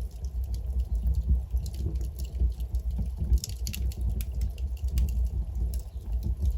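Wood fire burning in a fireplace, the logs crackling and popping irregularly over a steady low rumble.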